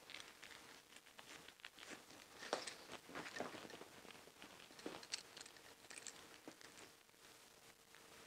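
Faint handling of a leather bag strap: scattered soft rustles and small clicks as the strap's middle section and buckle hardware are fastened back on.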